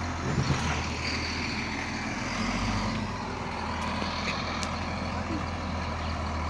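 The diesel engine of an XCMG GR215 motor grader running steadily, a low even drone.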